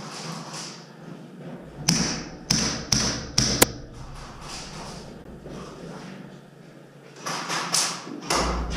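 Airsoft gunfire: about five sharp shots in quick succession, starting about two seconds in and spread over under two seconds.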